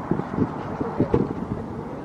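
Outdoor street ambience while walking on a pavement: wind buffeting the microphone, with irregular low thumps of footsteps and the swinging carrier bag.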